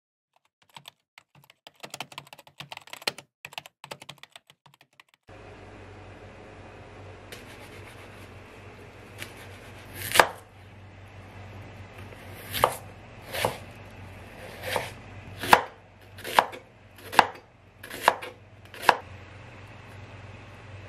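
Kitchen knife chopping through a peeled potato onto a cutting board: about nine sharp, separate strikes, irregularly spaced, starting about ten seconds in, over a steady low hum. Before them, a few seconds of light, irregular crackling.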